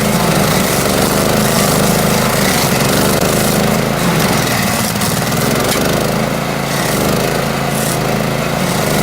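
Self-propelled stump grinder's small petrol engine running steadily, its pitch wavering and dipping briefly around the middle as the load changes.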